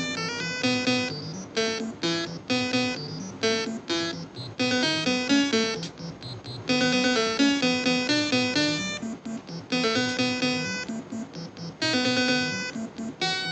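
Background music: a keyboard tune of short, quick notes in a steady rhythm.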